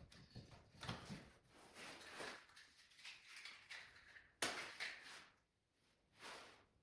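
Sped-up handling noise from laying a fire in a traditional wood stove: faint, irregular scrapes and knocks of wood and stove parts, with the sharpest knock about two thirds of the way in.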